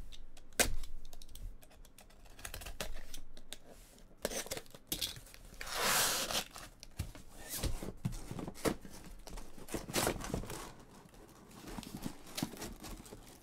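Trading card boxes, packs and cards being handled and opened: a run of light, irregular clicks and taps, with a rip of tearing packaging lasting about a second, about six seconds in.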